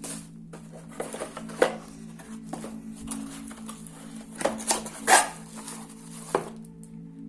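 Handling noises from unboxing a laptop: irregular knocks, taps and rustling, with a sharp knock about one and a half seconds in and the loudest cluster of knocks around five seconds in.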